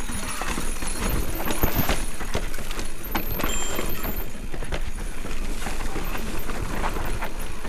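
Specialized Turbo Levo e-mountain bike clattering down a rough dirt trail. The tyres rumble over the ground, with a rapid, irregular run of knocks and rattles from the bike hitting rocks and bumps.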